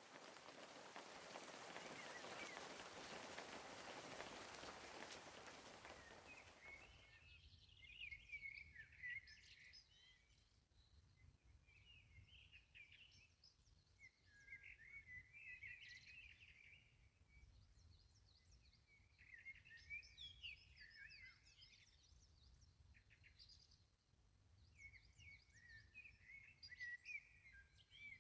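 Faint birdsong: small birds chirping in short clusters every few seconds over a low background rumble. A soft, even rushing noise fills the first seven seconds and then fades out.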